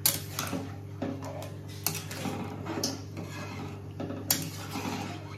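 Metal spatula stirring and scraping in an aluminium cooking pot of water and vegetable chunks, clinking sharply against the pot about five times. A steady low hum runs underneath.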